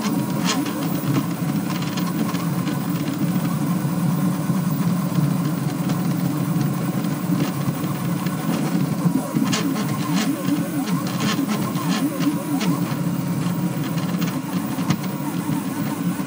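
Delta 3D printer running a fast print: its stepper motors hum and whine steadily, the pitch sliding up and down as the print head changes speed, with scattered short ticks over a steady fan whir.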